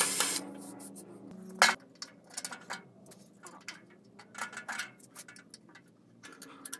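A cordless drill boring into a benchtop stops just as the sound opens. About a second later comes a sharp knock, then scattered light metallic clicks and clinks as a metal diaphragm pump is handled and fastened onto the cart top.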